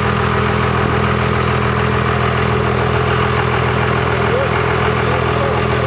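A pickup truck's engine idling steadily, a low even drone that does not change.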